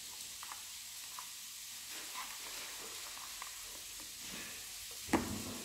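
Hands handling a small cardboard trading-card box: faint scraping and light taps as the lid comes off and the contents are lifted out, with one sharper knock about five seconds in.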